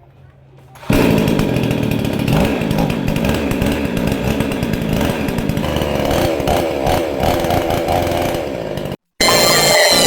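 Two-stroke chainsaw engine running and revving unevenly, starting abruptly about a second in. It stops with a sudden cut near the end, where electronic music with sweeping glides takes over.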